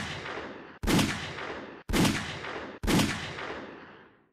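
9mm pistol shots from a Sig P938 firing MagTech 92.6-grain First Defense solid copper hollow points into ballistic gel: three sharp shots about a second apart, each followed by an echo that dies away over about a second.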